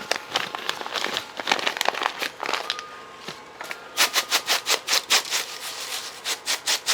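Panko breadcrumbs and flour being stirred together in a bowl. First comes scattered scratchy rustling, then from about four seconds in a quick rhythmic scraping of about four to five strokes a second.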